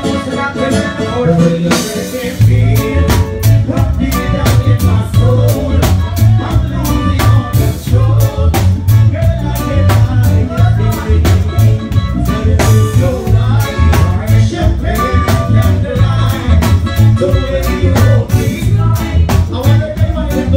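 Live band playing through a large PA system: drum kit, heavy bass and singing. The drums and bass drop out briefly near the start, then the full band comes back in about two seconds in.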